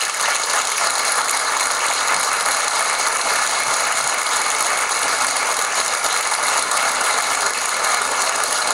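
Studio audience applauding steadily, a dense even clapping.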